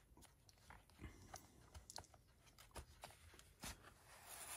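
Near silence with faint, scattered small clicks and light rustles of cardboard packaging being handled.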